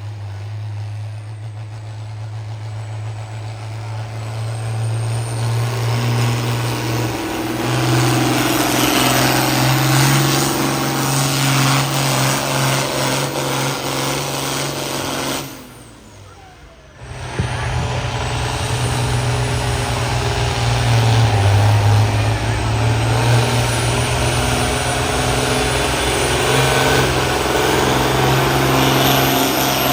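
International Harvester pulling tractor's engine running hard under load during a pull run, its pitch holding steady and stepping up slightly early on. The sound drops out briefly about halfway through and then comes back at full level.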